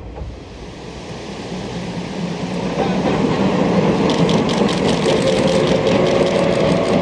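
C58 steam locomotive hauling a train of coaches over a steel truss bridge. The running noise grows louder over the first three seconds, then holds steady, with a fast run of quick beats from about four seconds in.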